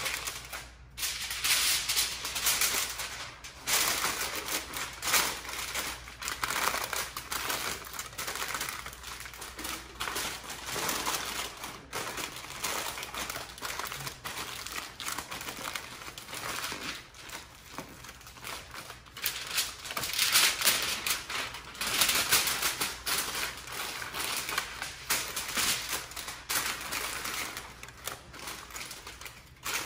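Aluminium foil crinkling and rustling as it is folded and pressed tightly around a rack of beef ribs, in irregular surges with brief pauses.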